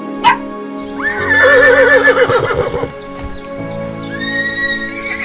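Horse whinnying once, a call that rises and then trembles downward for about two seconds, over background music with sustained tones. A short sharp click comes just before it.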